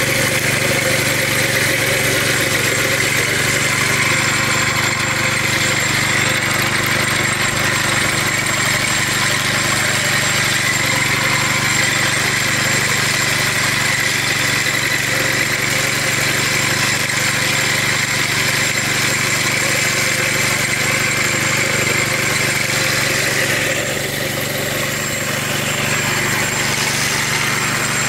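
Small single-cylinder petrol engine of a wheeled grass-cutting mower running steadily as it cuts through tall grass, a little quieter for a few seconds near the end.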